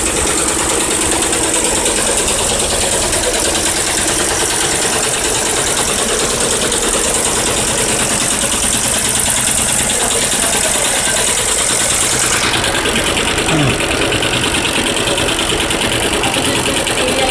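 Multi-head industrial embroidery machine running with its dual sequin attachments, a loud, steady, rapid mechanical clatter of needles stitching and sequins being fed. The bright hiss in the upper range lessens about twelve seconds in.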